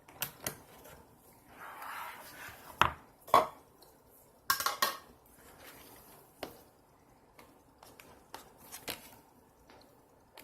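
Small plastic slime containers being handled: a series of light clicks and knocks, with a short soft rustle about two seconds in.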